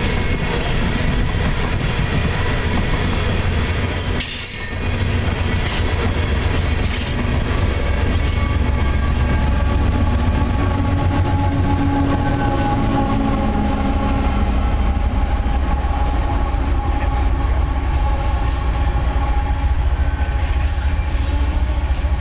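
Loaded coal train of hopper cars rolling past close by, a steady heavy rumble of wheels on the rails. A mid-train distributed-power diesel locomotive passes about midway. From about eight seconds in, a thin steady wheel squeal rides over the rumble.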